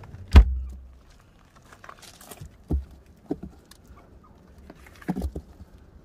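Meerkats scrambling over the rim of a hollow white box: four knocks and thumps with claws scratching between them, the heaviest a deep thud about half a second in.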